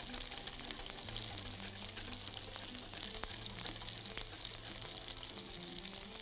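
Wire whisk stirring simmering demi-glace sauce in a stainless steel saucepan as the sauce thickens: a steady bubbling hiss with many light clicks of the whisk against the pan.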